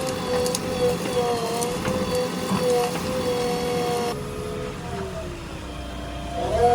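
JCB 3DX backhoe loader's diesel engine running at work with a steady engine note. About four seconds in, the pitch falls away, then rises again near the end.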